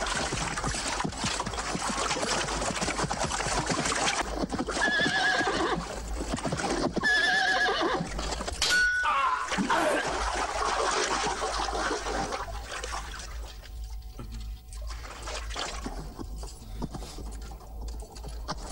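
Horses whinnying over a dense, noisy clatter, with two wavering whinnies about five and seven seconds in and a falling cry near nine seconds. The din dies down from about twelve seconds in.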